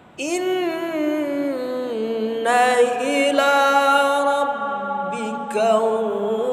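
A man's voice reciting the Quran in the melodic tilawah style, drawing out long held notes that bend slowly and step downward in pitch. A new phrase begins about five and a half seconds in.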